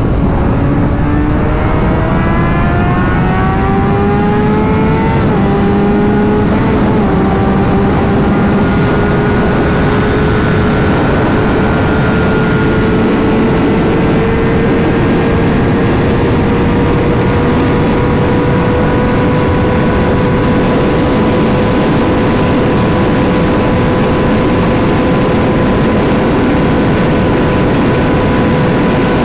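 Honda CBR600RR inline-four sport-bike engine under way: the revs climb over the first several seconds, then hold steady at cruising speed, with wind rush.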